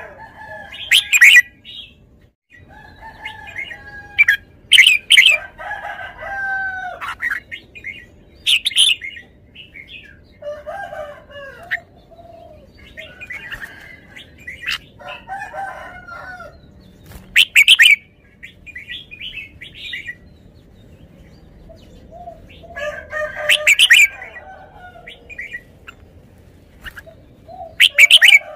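Red-whiskered bulbul singing short, warbling whistled phrases every few seconds, some ending in very loud, sharp notes.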